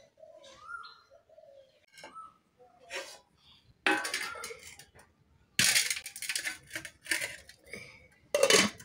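Metal utensils scraping and clinking against a steel pan or bowl in a run of short, irregular bursts, the loudest a little past halfway and near the end. A bird calls faintly near the start.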